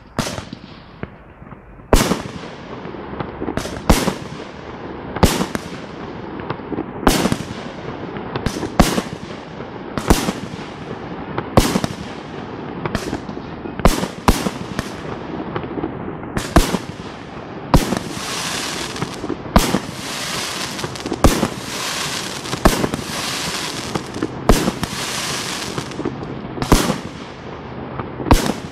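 Fireworks display: aerial shells bursting in a steady run of sharp bangs, about one a second, with a continuous hiss between the bangs that thickens past the middle.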